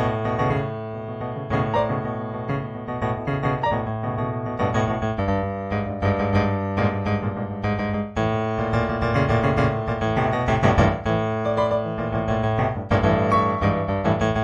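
Improvised solo piano music: chords and melody notes played over held low bass notes.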